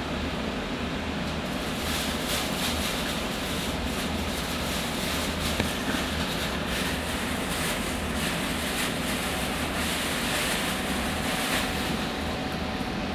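Steady background room noise: a low hum with hiss, the hiss brightening and fading in soft swells through the middle.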